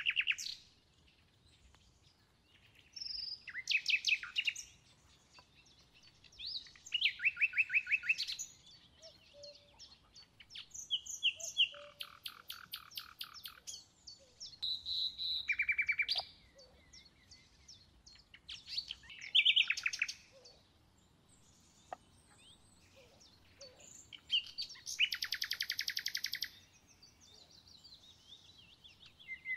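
Songbirds singing: short, quick trilled phrases repeated about every three to four seconds, with near quiet between them.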